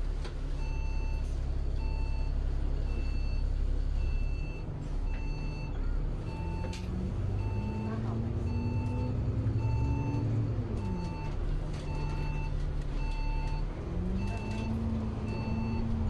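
Bus engine and drivetrain running under way, its pitch climbing as the bus speeds up, dropping near the middle at a gear change, then climbing again. An electronic beep repeats about twice a second through the turn.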